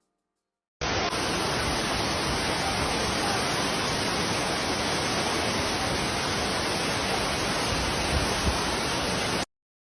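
Waterfall, a steady, even rush of falling water that starts suddenly about a second in and cuts off sharply near the end.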